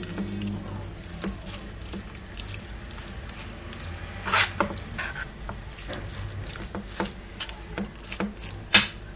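A metal spoon stirring a thick, moist filling of grated cooked apple and walnuts in a non-stick frying pan, with irregular scrapes and clinks against the pan. The loudest knocks come about four seconds in and again near the end.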